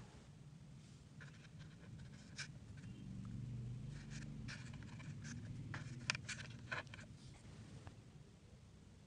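Faint handling noises of a small fishing jig on a flat board: light scratching and small clicks, most of them about four to seven seconds in, over a low hum.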